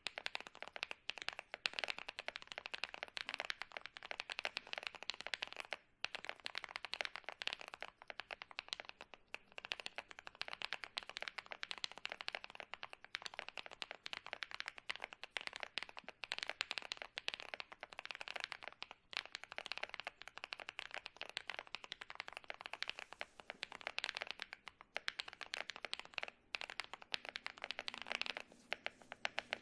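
Continuous typing on a Chilkey ND75 75% mechanical keyboard with Fuji Studio light tactile switches and Melectrics Whale keycaps: a rapid, steady clatter of keystrokes with a few brief pauses.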